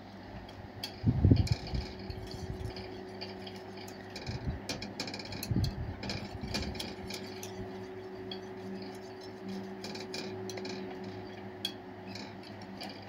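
Wire whisk clicking and scraping against a thin aluminium saucepan as a milk-and-starch cream is stirred continuously on the heat to thicken. A steady low hum runs underneath, with a couple of dull bumps, the loudest about a second in.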